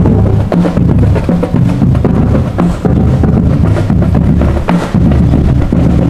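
Marching band playing: drums striking steadily under low notes that step up and down in pitch.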